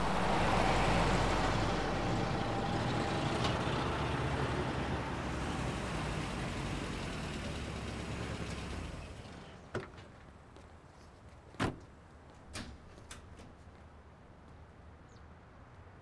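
A vintage car's engine and tyres running as it drives in and pulls up, dying away about nine seconds in. After that, a few sharp clicks and knocks follow as its doors are opened and shut.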